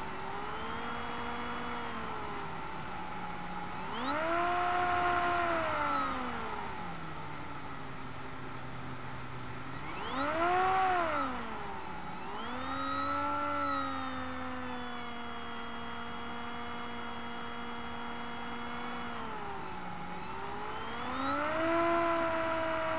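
Radio-controlled model seaplane's motor and propeller, heard from its onboard camera, running with a whine whose pitch rises and falls as the throttle is opened and eased. The surges come about four, ten and thirteen seconds in and again near the end, the one about ten seconds in the loudest.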